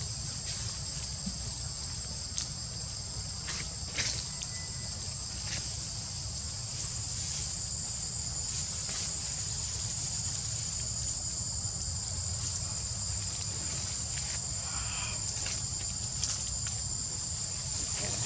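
Steady high-pitched insect chorus, with a low rumble underneath and a few faint clicks.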